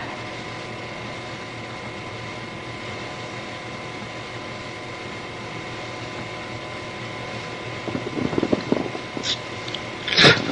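Steady hiss with a faint electrical hum: the noise floor of the recording. Faint rustling comes about eight seconds in, and a short, sharp burst of noise comes near the end.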